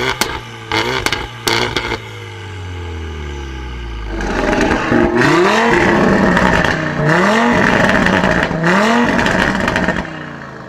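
Car with a loud modified exhaust. First a few sharp pops and cracks as the revs fall away. Then hard acceleration, the engine note climbing, breaking off and climbing again three times, as if shifting up through the gears.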